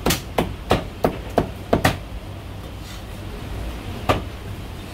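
Steel cleaver chopping through marinated goose onto a thick round wooden chopping block. There is a quick run of about seven chops, roughly three a second, over the first two seconds, then a pause and a single chop about four seconds in.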